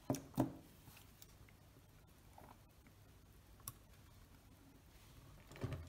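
Small sharp clicks and light knocks of metal tweezers and a Zeiss Ikon Contaflex IV camera body being handled: two clicks in quick succession at the start, a single click a little past halfway, and a short cluster of knocks near the end.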